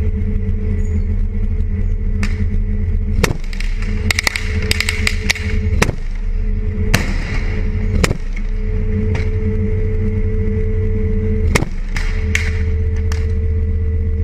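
Armoured vehicle's engine running with a steady heavy drone, under scattered gunshots and bangs of street fighting, including a quick burst of automatic fire about four seconds in.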